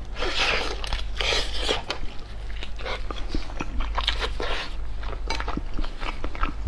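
Close-miked biting and wet chewing of a soft vegetable sausage, a translucent casing stuffed with glass noodles and vegetables: a run of sharp mouth clicks and short noisy bites.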